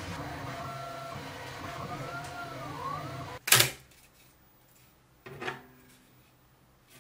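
3D printer running a print, its stepper motors whining in pitches that rise and fall as the print head speeds up and slows down. Then a loud sharp click about three and a half seconds in and another near the end of the second second after it, as a printed plastic part is taken off the build plate.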